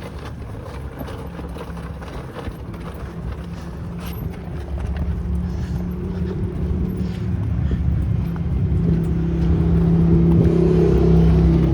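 Pickup truck's engine and road noise heard from inside the cab while driving: a steady low hum that grows louder from about halfway through.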